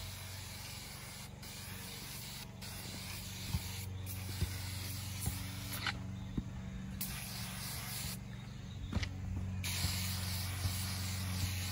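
Aerosol can of foaming glass cleaner spraying onto a truck's front grille in long hissing bursts, with short breaks and a longer pause about eight seconds in.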